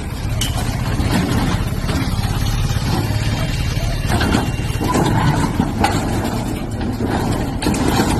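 A bulldozer's diesel engine running steadily with a low hum, with a few faint knocks over it.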